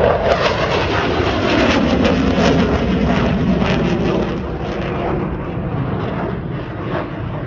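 Fixed-wing display aircraft flying past with loud engine noise whose pitch falls over the first few seconds, then a steady rumble.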